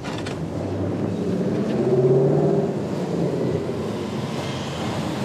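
A Ram 1500 pickup truck driving past close by, its engine and tyre noise swelling to a peak about two seconds in and then easing off, over general street traffic.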